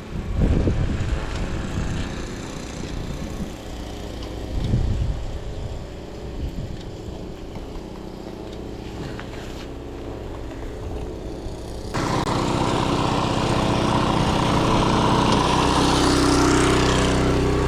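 Low gusty rumbling, like wind on the microphone. About twelve seconds in, a loud, steady engine sound comes in suddenly and keeps running.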